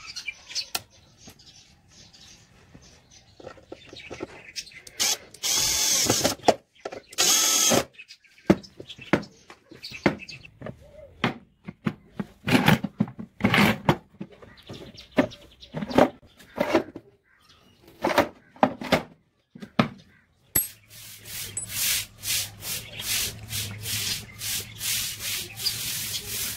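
Scattered knocks, taps and rubbing of a wooden tool box and its metal fittings being handled, with two short louder bursts about six and seven seconds in. About twenty seconds in, a cordless drill starts and runs steadily with a fast rattle, drilling through a metal latch plate on the box.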